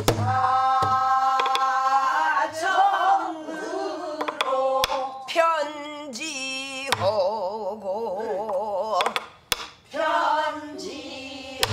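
Pansori singing by a woman's voice, with long held notes, sliding pitch and a wide wavering vibrato in the middle. A buk barrel drum accompanies it with a few dull low strokes and some sharp stick clicks on its wooden rim.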